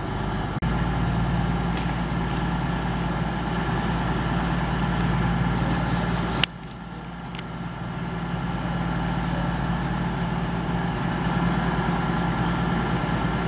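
Class 222 Meridian diesel multiple unit standing at the platform, its underfloor Cummins diesel engines idling with a steady low hum. The sound steps up suddenly about half a second in, drops sharply about six and a half seconds in, then slowly builds back.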